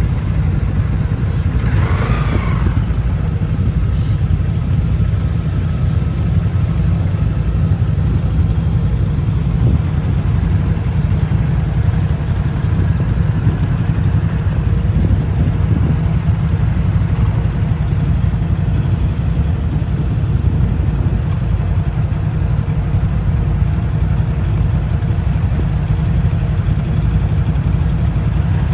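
Steady low rumble of a road vehicle in motion, heard from inside, with no clear change through the stretch.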